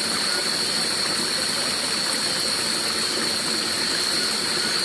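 Steady rushing of a forest stream, with a constant high-pitched whine over it.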